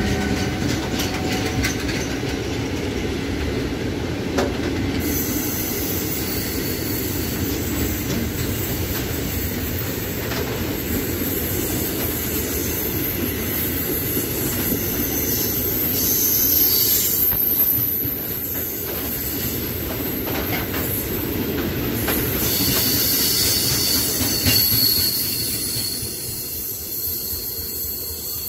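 Freight train of open box wagons rolling past on the rails: a steady low rumble of wheels with a high-pitched wheel squeal that starts about five seconds in. The sound dies down as the last wagon passes near the end.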